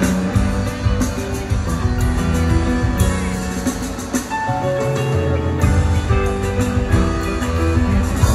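Live rock band playing in an arena: held guitar and keyboard notes over bass and drums, with cymbal hits about every second or two.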